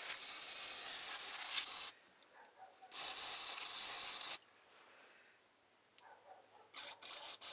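Aerosol cleaner sprayed through its straw onto carburetor parts: a hiss of about two seconds, a second of about a second and a half, then a few short puffs near the end.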